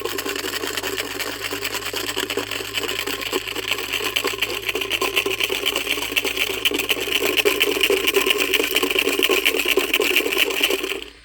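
Guinea fowl calling in a fast, continuous rattling chatter, typical of their alarm call, for about eleven seconds before it stops abruptly near the end.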